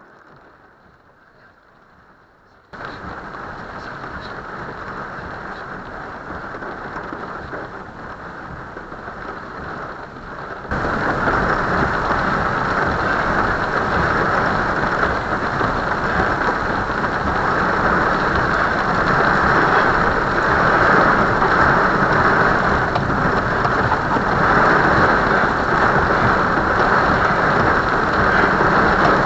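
Heavy rain pouring down, a steady hiss that starts suddenly about three seconds in and gets louder about eleven seconds in.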